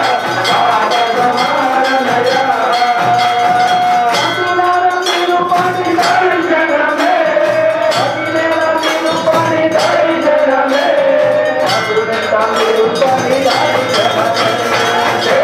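Temple bells ringing continuously and rapidly during the camphor-flame aarti. Sustained ringing tones that shift in pitch blend with the strikes.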